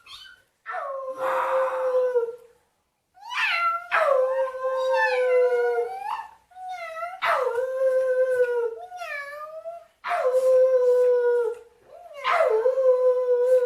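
A dog howling: about five long howls in a row, each sliding down at the start and then held on one pitch for a second or two.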